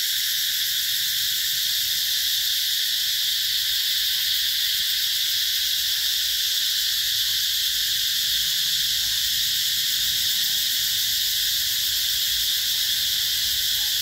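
Cicadas in chorus: a loud, steady, high-pitched drone that does not let up.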